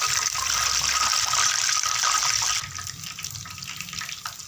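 Hot oil sizzling loudly around a whole katla fish deep-frying in a pan as it is lifted and turned with a metal spatula; the sizzle drops to a quieter bubbling about two and a half seconds in.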